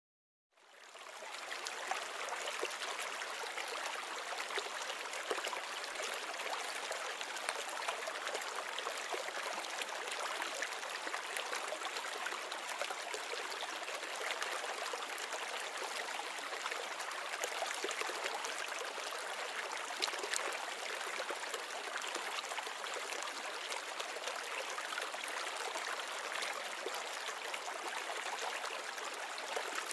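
Steady trickling and bubbling of water circulating in a small saltwater aquarium, with small scattered ticks, fading in about half a second in.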